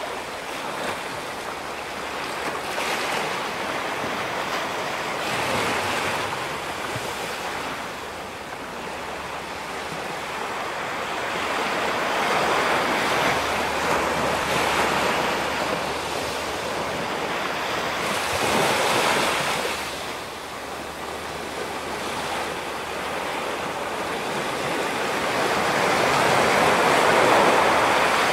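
Ocean waves breaking and washing over a rocky shore: a steady rush of surf that swells and ebbs every few seconds, loudest near the end.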